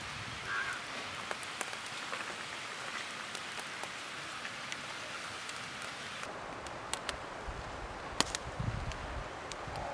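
Steady outdoor hiss with scattered light ticks. About two-thirds of the way through, a few soft low thumps and one sharp tap come in.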